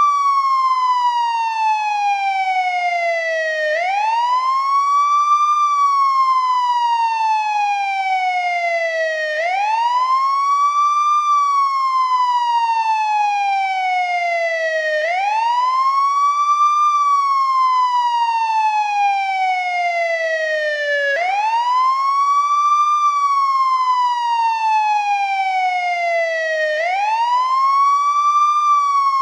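An older model of American ambulance wail siren, cycling without a break. Each wail rises quickly in pitch and then falls slowly, repeating about every six seconds.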